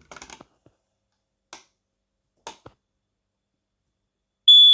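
A few faint clicks from handling the alarm, then near the end a home smoke alarm starts its test beep: a loud, steady, high-pitched tone.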